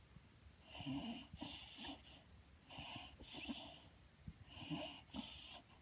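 A dozing beagle breathing noisily through its nose: three wheezy, snuffling breaths about two seconds apart, each a short intake followed by a longer breath out.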